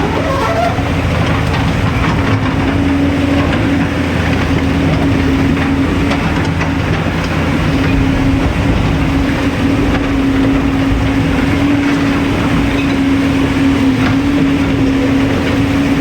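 Hydraulic excavator's diesel engine running at a steady, high speed, one even pitch throughout.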